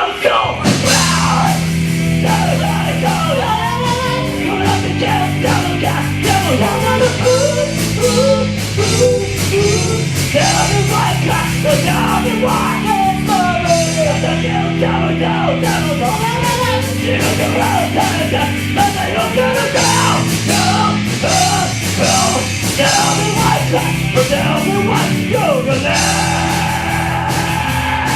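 A band playing a fast rock song, with a singing voice over drums and a bass line.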